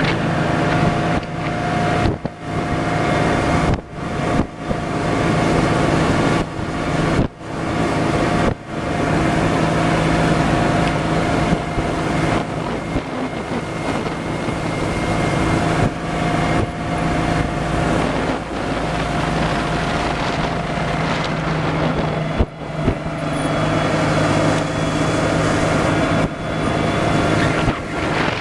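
Small boat's outboard motor running steadily at cruising speed, with wind noise on the microphone and a few brief dips in the level.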